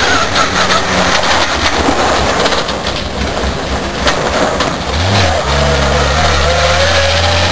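Old rally truck racing past on a gravel road: engine running hard over a noisy wash of tyres on gravel. About five seconds in, a deep engine note comes in strongly, with a rising whine as it accelerates.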